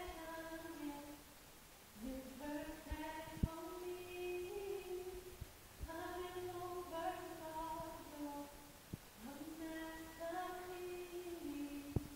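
A woman singing unaccompanied in four slow phrases, each holding and sliding between long notes, with short pauses between them. A light tap sounds about three seconds in and another near the end.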